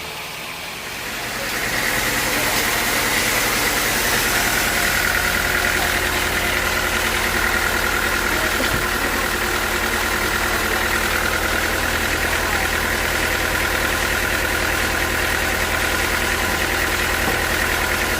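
Sawmill machinery running steadily, growing louder over the first two seconds and then holding, with a low hum under a steady high tone.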